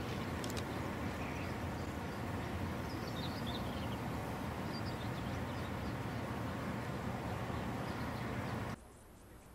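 Steady wind rumble on the microphone outdoors, with a few faint bird chirps a few seconds in; the rumble cuts off suddenly near the end.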